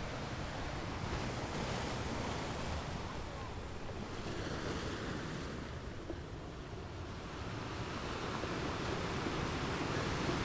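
Shallow water lapping and washing over pebbles at the shoreline, a steady rushing that swells and eases in slow surges.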